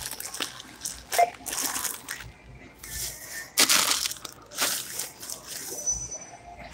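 Plastic shopping bags and packaging rustling and crinkling in irregular bursts as groceries are handled, with a brief high tone near the end.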